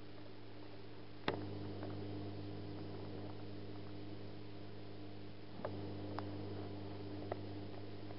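Steady low electrical hum over a faint hiss, broken by one sharp click about a second in and a few fainter clicks later.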